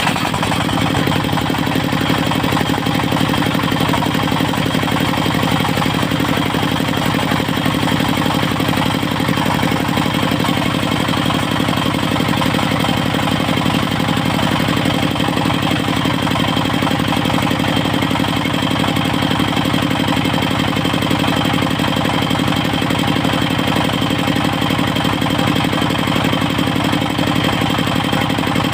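Engine of a portable circular sawmill running steadily at constant speed.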